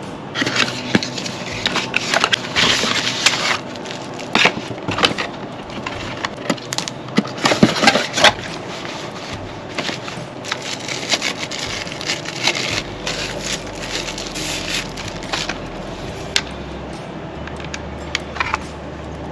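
Packaging being opened and handled: irregular crinkling, crackling and sharp clicks of cardboard and plastic, busiest and loudest in the first half and sparser toward the end.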